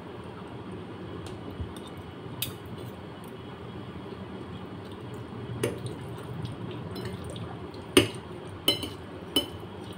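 Close-miked eating of creamy carbonara pasta: soft wet mouth and chewing sounds, with a few sharp clicks and taps, most of them in the last few seconds.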